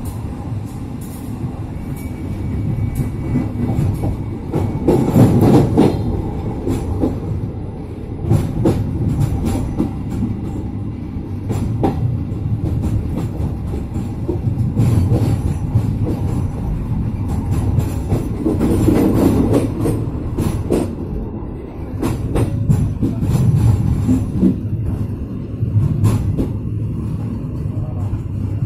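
Passenger train's steel wheels running over track and pointwork, heard from the rear of the last coach: a steady low rumble broken by irregular clacks as the wheels cross rail joints and switches, with a faint thin wheel squeal a few seconds in.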